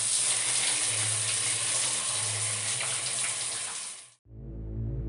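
A steady rushing hiss that cuts off suddenly about four seconds in, followed by a low droning music bed with repeating notes.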